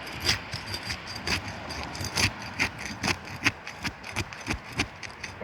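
Asphalt roof shingles being worked loose and pulled up, giving an irregular run of sharp clicks, cracks and knocks, a few a second. The shingles are old and brittle, cracking as they come apart, which shows the roof cannot be repaired.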